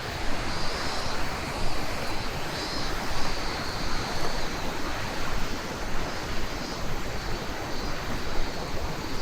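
Fast-flowing river water rushing below, a steady wash of water noise, with wind buffeting the microphone.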